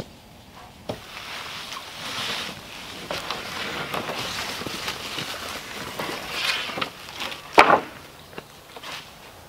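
Weathered wooden boards being dragged and scraped over leaf litter and brush, a rough rustling scrape with small knocks, then one loud wooden clatter about seven and a half seconds in as a board is thrown down.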